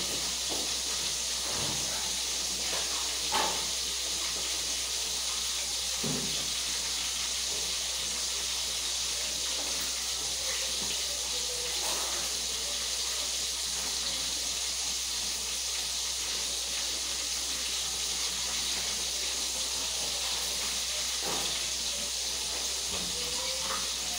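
A steady hiss, even and unbroken, with a few faint clicks scattered through it.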